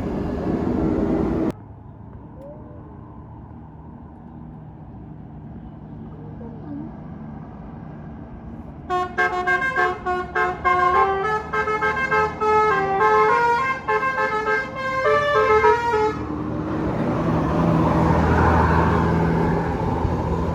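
Bus telolet 'basuri' musical horn playing a quick tune of short stepped notes for about seven seconds, starting about nine seconds in. It is followed by a louder rush of noise over a low hum.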